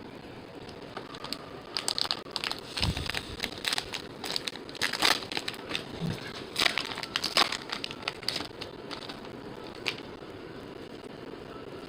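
Baseball card pack wrappers crinkling and tearing as packs are opened and the cards handled: a run of sharp crackles lasting a few seconds, then a single click near the end.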